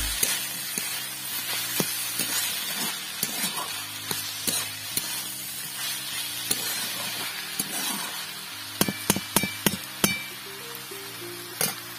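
Chopped banana flower and potatoes sizzling in a metal karai as a flat metal spatula stirs and scrapes through them, with repeated sharp clinks of the spatula against the pan, a quick cluster of them about nine seconds in. Background music plays underneath.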